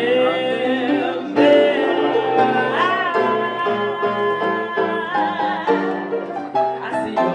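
A woman singing live into a microphone with piano accompaniment, holding long notes that bend and waver in pitch.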